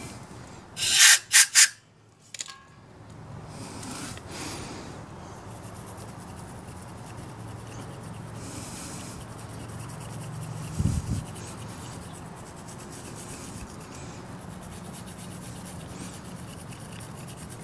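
Three short loud bursts about a second in, then a bore brush scrubbing carbon out of the exhaust port of a Kawasaki KLX140's cylinder head: a steady rubbing scrape, with a brief low knock about eleven seconds in.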